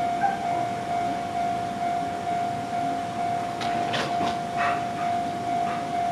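Japanese railway level-crossing warning bell ringing over and over at one steady pitch, the signal that a train is coming. A few short hissing bursts come about four seconds in.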